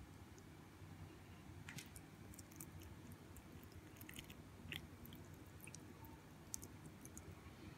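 Faint, scattered wet ticks and small clicks of tea being poured from a bowl of soaked fruit into a well of flour, over a low steady hum.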